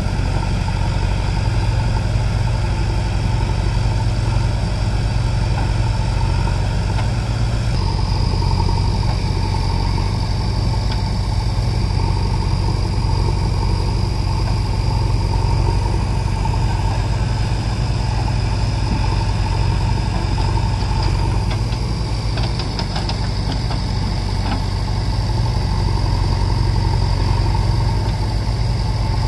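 JCB 3DX backhoe loader's diesel engine running steadily as the backhoe arm digs and swings soil, with a steady high whine over the engine drone.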